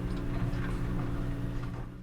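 Laundromat ambience: running washers and dryers give a steady low hum, with scattered light clicks and knocks. It begins to fade out near the end.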